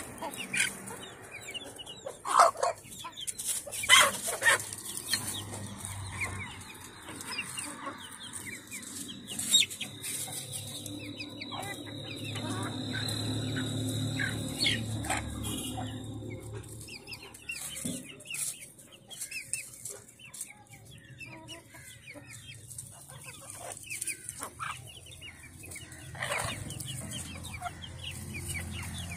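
Chickens clucking while they peck at food scraps on the ground, with a few sharp, loud sounds in the first ten seconds. A low hum swells and fades in the middle.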